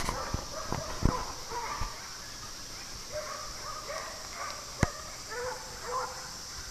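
Several dogs barking at a distance, short barks and yaps scattered through, with a few sharp knocks, the loudest just before five seconds in.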